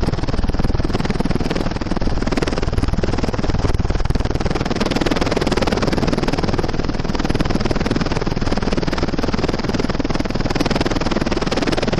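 Loud, steady engine and air noise heard from inside the cabin of a small aircraft in flight.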